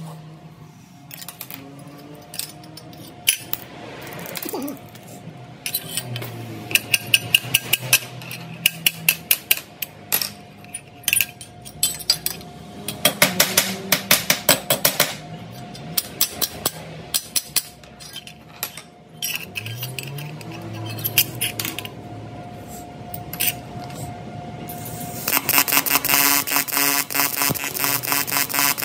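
Music with many sharp clicks or taps scattered through it, becoming a dense, rapid ticking near the end.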